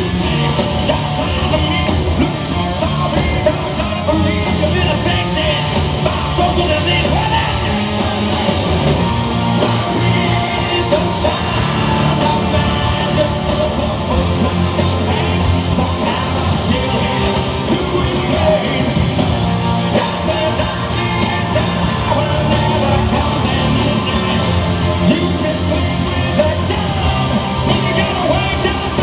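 Hard rock band playing live: distorted electric guitars, drums and bass under yelled, sung vocals.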